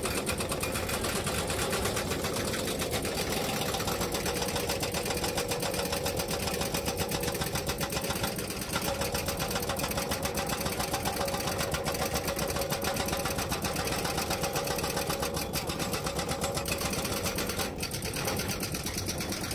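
Hydraulic rock breaker on an excavator hammering its chisel into rock, a rapid, even stream of blows, with short breaks about eight and a half seconds in and near the end.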